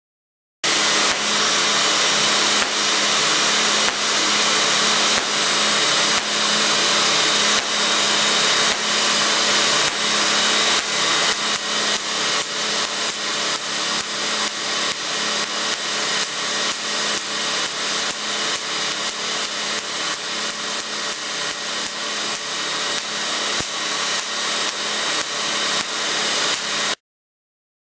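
Home-built 16-inch Van de Graaff generator running, its motor and belt giving a steady whir with a hum, while sparks crack from the sphere in a regular series, about one a second at first and two or three a second later on. It starts about half a second in and stops suddenly near the end.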